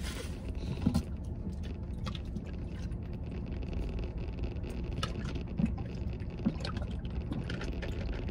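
Steady low hum inside a pickup truck's cab, with a few short, soft gulps as a man drinks from a plastic bottle.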